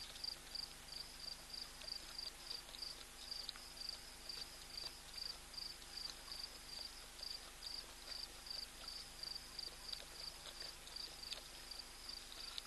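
A night insect chirping in a steady, even rhythm, about three high-pitched chirps a second.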